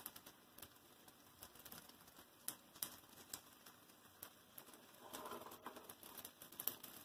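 Faint crackling of hot oil as small wheat-flour malpua shallow-fry in a pan: scattered little pops and clicks, with a brief soft rustling noise about five seconds in.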